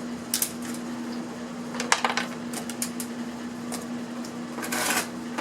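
Scattered clicks, knocks and a short rustle of small plastic and metal parts being handled and dropped, over a steady low hum.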